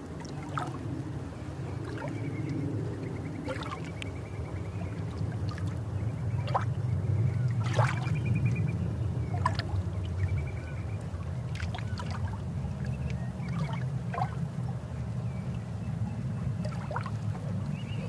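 Underwater water sound with bubbles: a steady low rumble with scattered clicks and gurgling, a little louder around the middle.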